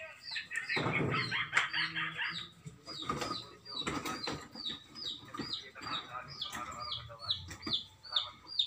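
A chick peeping over and over, a short falling peep about three times a second, among chickens clucking. A rustling clatter runs through the first couple of seconds.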